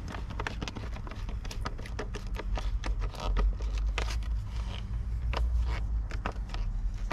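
Irregular clicks and small metallic knocks of a size 9 socket wrench tightening a bolt on the air filter housing, a few a second, over a steady low rumble.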